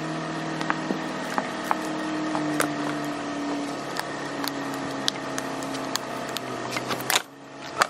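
Light clicks and taps of a bent steel-rod hook frame being handled against a riveted leather apron on a workbench, over a steady background with sustained tones that change pitch a few times. The sound drops out briefly near the end.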